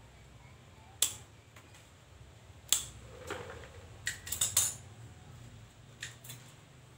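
Bonsai cutters and pruning scissors snipping woody stems of a kemuning (orange jasmine) bonsai: sharp single snips about a second in and just before the middle, a quick run of clicks and metal clinks past the middle, and two more snips near the end.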